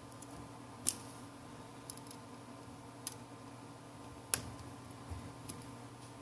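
A few small, sharp clicks and taps, about five of them roughly a second apart, the loudest about four seconds in, as the phone's parts are handled and the display's flex cable connector is pressed onto the board.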